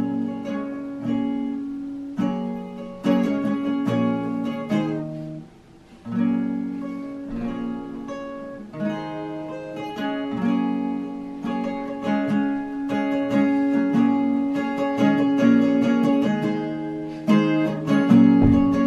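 Acoustic guitar strumming chords, with a short pause about five and a half seconds in.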